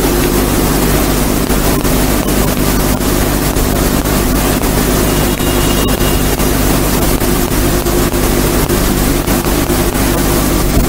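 Loud steady electrical hum with hiss and frequent light crackling, noise in the microphone and sound system.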